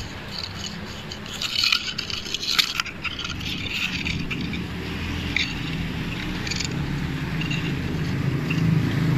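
Cardboard box scraping and knocking as it is set down on a steel bench and handled, with a few sharp clicks about two and a half seconds in. A steady low hum runs underneath and grows louder near the end.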